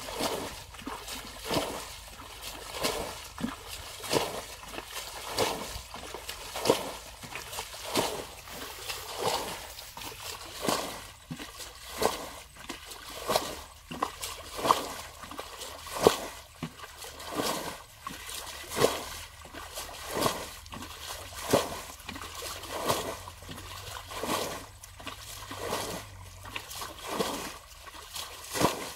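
Water being bailed from a shallow muddy pool with a plastic bucket: a steady rhythm of scooping and splashing, roughly a bucketful every second, as each load is scooped and flung out.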